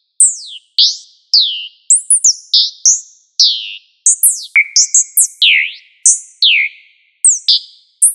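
Synthesized robot-bird chirps: short high electronic whistles, most swooping quickly down in pitch and a few rising, each starting with a sharp click. They come one to three a second, bunching into quick runs about two seconds in and again around four to five seconds.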